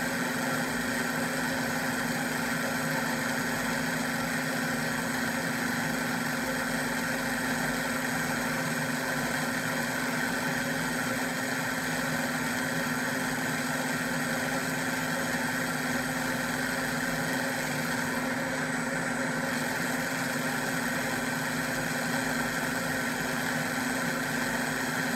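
Electric kitchen appliance motor running steadily at one speed as it purees red onion, a constant whirring hum.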